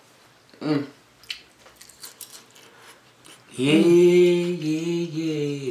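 Faint chewing clicks while eating crunchy nachos, then a person humming a few steady notes for about two seconds, starting past halfway.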